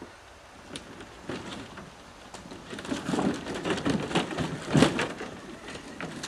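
A loaded canoe dragged by hand over muddy, branch-strewn ground: irregular scraping and knocking of the hull, busiest and loudest about three to five seconds in.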